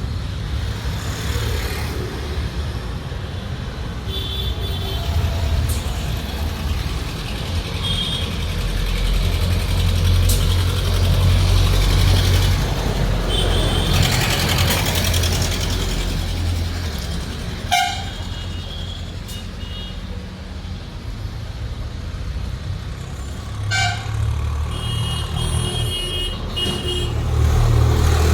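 Road traffic: heavy vehicles going by with a low rumble that swells twice, with several short horn toots and two sharp knocks.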